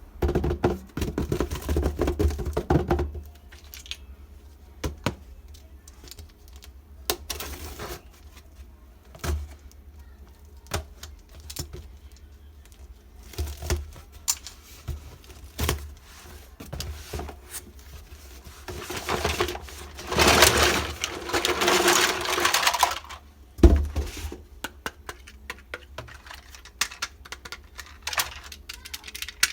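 Small pieces of a miniature toy steel kitchen set being handled: scattered light clicks, taps and clinks throughout, with a few seconds of louder rustling and scraping noise about twenty seconds in.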